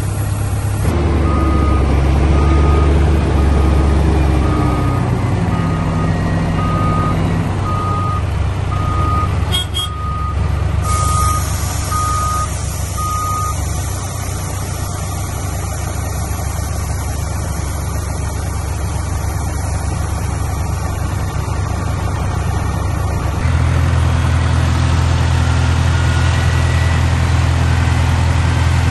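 Heavy diesel engines running, with a dump truck's reversing alarm beeping about once a second through the first half, then stopping.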